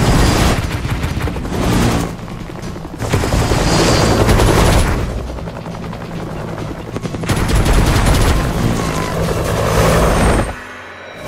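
Music soundtrack mixed with the rapid chopping of a low-flying attack helicopter's rotors, coming in loud surges as it passes, and dropping away sharply near the end.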